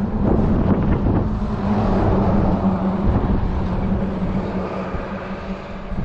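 Wind buffeting the microphone, with a steady low motor hum running underneath.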